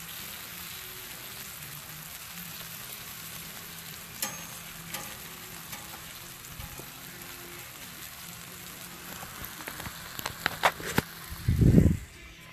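T-bone steak sizzling on a griddle, a steady frying hiss, with scattered sharp pops and clicks. Near the end comes a loud, short, muffled bump.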